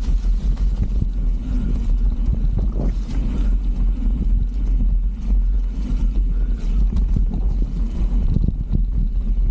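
A mountain bike rattling and knocking as it rides downhill over rough trail, with wind buffeting the microphone. It makes a loud, steady low rumble with many small irregular knocks through it.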